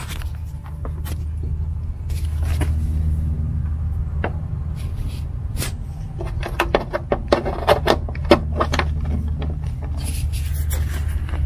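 Clicks and scrapes of an aviation-style cable connector and the port's cap being handled at a Bluetti AC200's DC input, the clicks coming in quick succession from about halfway through, over a steady low hum.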